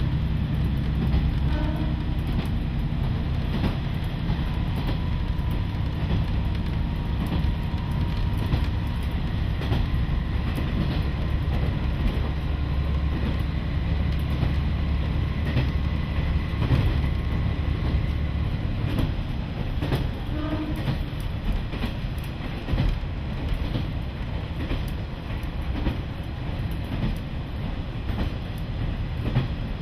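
Inside a KiHa 40 diesel railcar on the move: the diesel engine's low drone with the wheels clicking over rail joints. The heavy low drone drops away about two-thirds of the way through, leaving mostly the running and rail noise.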